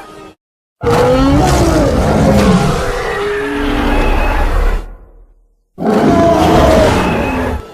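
Two monster roar sound effects: a long roar starting about a second in, then a shorter one after a brief silent pause.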